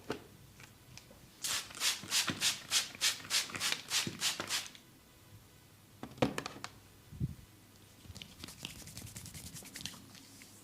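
Hands striking the body in a quick, even rhythm of percussive massage, about four slaps a second for roughly three seconds. A single sharp smack follows, then a fainter flurry of quick pats near the end.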